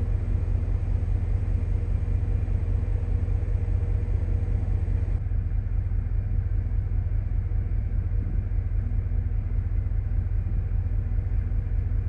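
Steady, loud low rumble with a faint hum under it, from wind buffeting the microphone on a cruise ship's deck; the upper tones dull about five seconds in.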